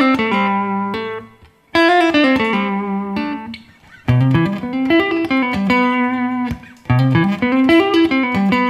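Electric guitar with a clean tone playing a quick descending hammer-on and pull-off legato run over A minor. The run repeats about every two to three seconds, each time ending on a held low note.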